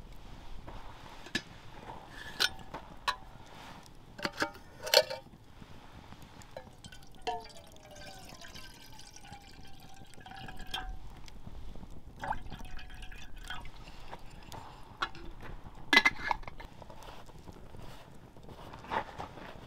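Metal camp cookware clinking and knocking around a kettle hung over a campfire, with water poured for a few seconds starting about seven seconds in. The loudest sound is a sharp metal clink about sixteen seconds in.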